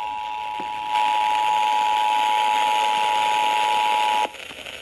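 Emergency Alert System dual-tone attention signal, two steady tones sounding together over radio static. It cuts off sharply about four seconds in, leaving only the static, and marks the start of an alert message, here a severe thunderstorm warning.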